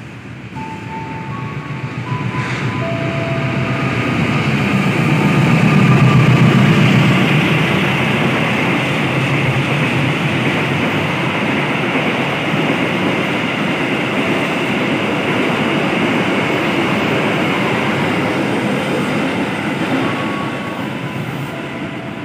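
Locomotive-hauled long-distance passenger train passing through the station at speed. The sound builds over the first few seconds to its loudest about six seconds in as the diesel locomotive goes by, then the coaches' wheels on the rails keep up a steady rush that eases a little near the end.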